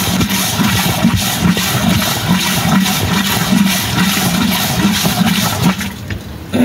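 Water rushing or pouring, dying down about six seconds in.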